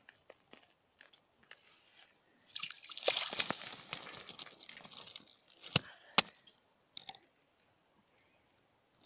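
Crunching and scraping of broken ice chips and slush around an ice-fishing hole as a fish is handled, with scattered small clicks and a couple of sharp knocks on the ice about six seconds in.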